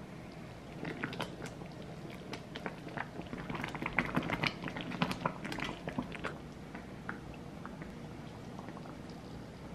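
Thick mango jam simmering in a pan, bubbling with many small sticky pops and plops while a silicone spatula stirs it. The pops thin out about six seconds in, leaving a soft steady hiss.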